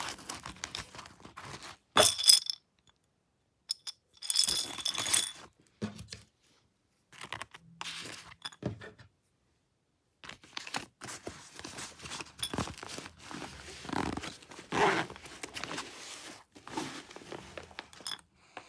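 Handling noise from a zippered fabric bag of fingerboard gear being rummaged through: scrapes, rustles and small clinks of plastic and metal parts such as a fingerboard tool. It comes in separate bursts with short gaps of dead silence, the sharpest burst about two seconds in.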